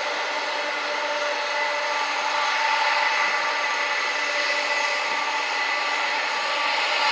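Jet engines of a Boeing 747-400 running as the airliner rolls past on the ground: a steady rushing whine with several held tones, growing slightly louder.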